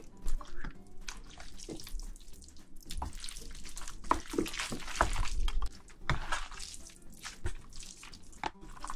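Chopsticks mixing thick black bean sauce into a bowl of jjajangmyeon noodles, making irregular wet, sticky sounds and small clicks.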